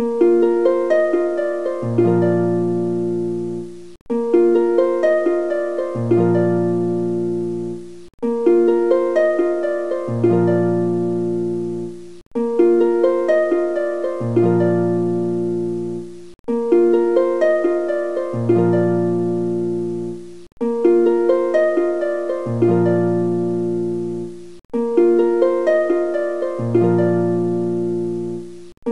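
Background music: a short melody on a plucked string instrument that loops about every four seconds, each repeat separated by a brief drop-out.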